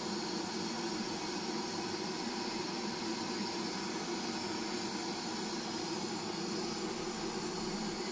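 Hand-held gas blowtorch on a disposable cylinder burning with a steady hiss, its flame heating knife steel for hardening.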